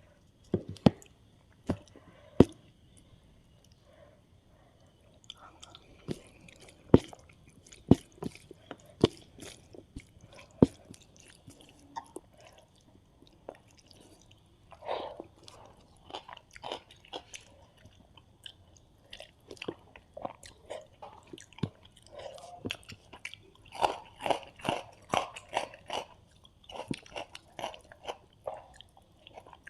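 Close-miked eating sounds from a meal of rice, fried fish, eggs and curry: sharp isolated crunches in the first third, then steady wet chewing at about three strokes a second.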